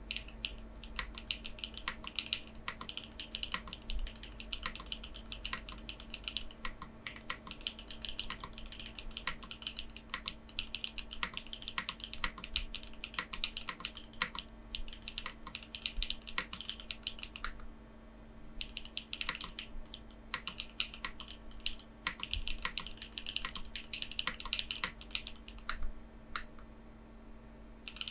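Typing on a Haven TKL mechanical keyboard with Gateron Silyworks SLAY Type R switches and PBTFans Pyga PBT keycaps: a rapid, continuous run of keystrokes with a short pause about two-thirds of the way through.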